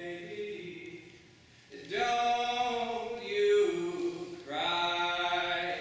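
A man's voice singing without accompaniment: a softer phrase, then two long held notes, the first dipping in pitch near its end.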